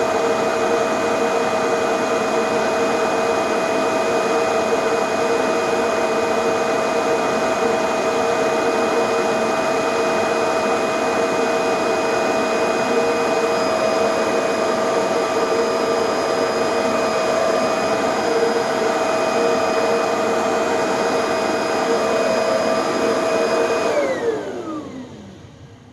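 Kirby G5 vacuum motor, on refurbished bearings, running steadily with a whine while blowing its exhaust through a hose into a vacuum bag. About 24 seconds in it is switched off and the whine falls in pitch as the motor spins down.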